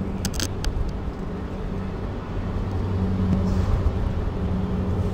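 Heavy equipment engine running steadily with a low hum, with a few sharp clicks about half a second in.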